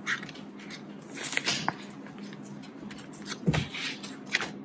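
Hands handling Australian polymer banknotes and a plastic zip envelope in a ring binder: scattered soft crinkles and rustles, with a dull thump about three and a half seconds in.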